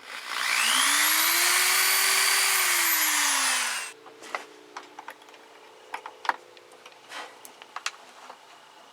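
A small handheld power tool's motor spins up with a rising whine, runs steadily for about three seconds, then slows and cuts off. Light scattered clicks and taps follow.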